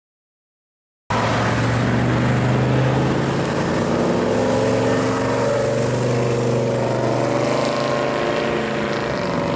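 1970 Chevrolet Chevelle convertible driving slowly past, its engine and exhaust running steadily with a strong low drone. The sound begins abruptly about a second in.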